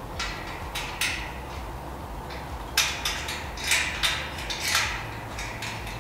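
Metal clinks and short scrapes of a wrench and Allen key on the bolts of a steel folding bed frame as the bolts are tightened, in an irregular series of about eight sharp sounds.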